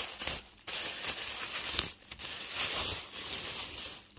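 Thin plastic bag crinkling and rustling as fingers pick at its tied knot, in bursts broken by short pauses.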